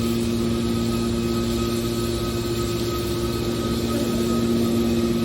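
Industrial machinery running, a steady hum with a constant whine over it.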